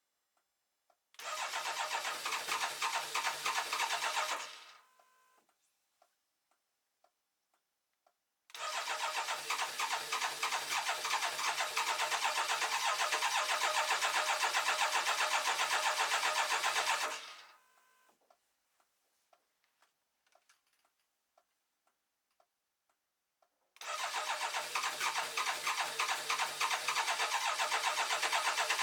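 BMW K1200LT's inline-four engine being cranked on the electric starter in three long tries, the last running on past the end, with a steady pulsing rhythm that winds down when each stops: the engine turns over but does not catch, a no-start.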